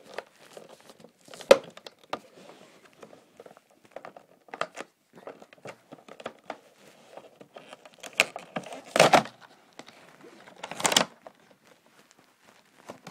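Toy packaging being opened by hand: clear plastic blister and card crinkling and tearing in irregular crackles. There is a sharp crack about a second and a half in and two louder bursts of crinkling late on.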